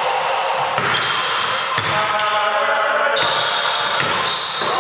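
A basketball being dribbled on a hardwood gym floor, the bounces ringing through a large hall, with players' voices calling out. Near the end, short high squeaks of sneakers on the court as a player drives to the basket.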